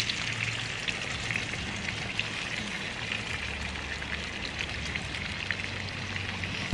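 Pork belly frying in hot oil in a pan: a steady sizzling hiss with small crackling pops.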